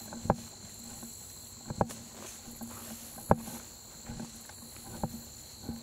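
Footsteps on a trail, five dull thumps roughly a second and a half apart, over a steady high-pitched insect chorus.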